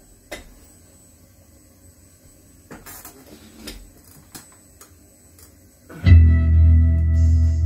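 A few faint clicks and knocks in a quiet room, then about six seconds in a rock song starts suddenly and loud, with heavy bass and sustained guitar notes.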